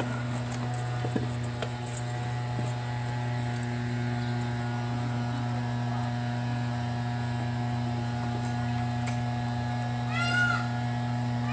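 A steady low hum made of several held tones. About ten seconds in, a few short rising-and-falling animal calls.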